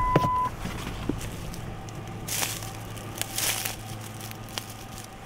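A truck door clicks open with a short beep at the very start, then footsteps crunch through dry leaf litter, with two louder steps about two and a half and three and a half seconds in.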